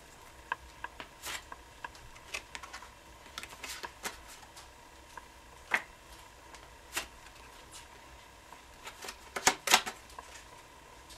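A deck of playing cards being cut and handled in the hands, with scattered light clicks and snaps of cards against cards. Near the end comes a quick run of louder card snaps.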